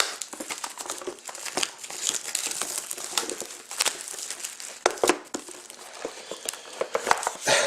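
Plastic shrink-wrap being torn and crinkled off a sealed box of trading cards, with irregular crackling and rustling as it is handled.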